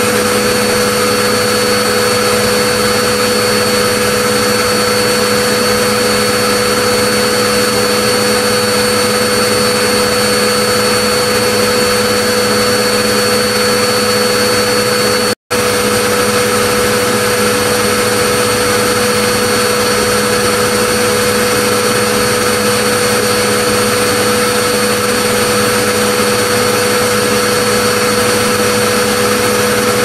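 Vacuum cleaner running steadily: a loud, even rushing noise with a steady whine on top. It cuts out for an instant about halfway through, then carries on unchanged.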